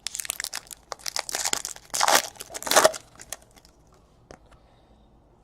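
Trading-card pack wrapper crinkling and tearing as a pack is opened and the cards handled, a dense run of rustles and crackles for about three seconds, then only a few faint ticks.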